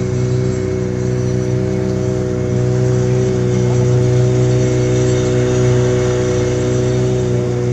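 Motorboat engine running steadily at cruising speed, a constant low drone.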